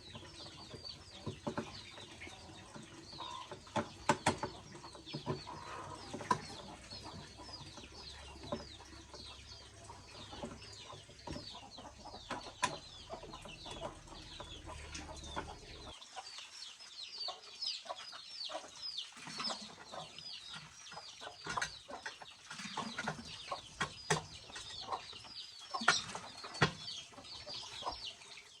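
Chickens calling in the background: a steady run of short, high calls that fall in pitch, several a second, with scattered knocks and clicks. A low hum underneath cuts off just past halfway.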